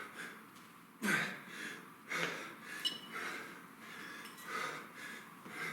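A man's heavy, forceful breathing, sharp exhales coming about once a second with the effort of kettlebell clean, lunge and press reps.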